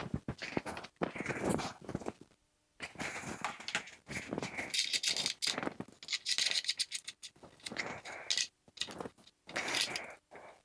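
Irregular rattling, clicking and scraping of speaker wire and connectors being handled as bookshelf speakers are hooked up.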